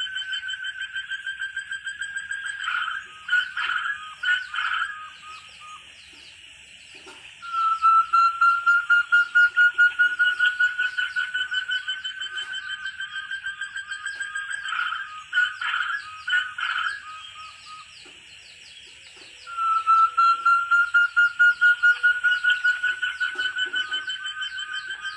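Forest partridge (puyuh hutan) calling: a long, rapid trill of whistled notes that slowly rises in pitch over several seconds, then breaks into a few louder separate notes. This comes three times, with short pauses between.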